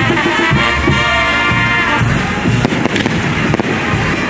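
Aerial fireworks bursting in a run of sharp bangs and crackles, with music playing underneath.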